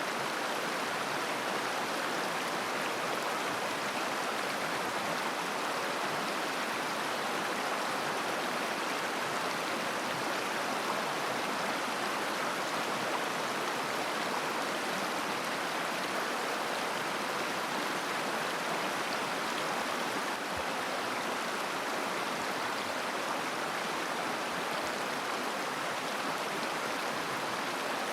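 A mountain river flowing over stones, a steady, even rush of water.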